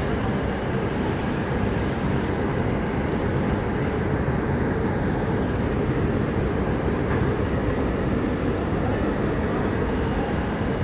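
An R160A subway car running steadily along elevated track, heard from inside the car: an even rumble of wheels on rail with a few faint ticks.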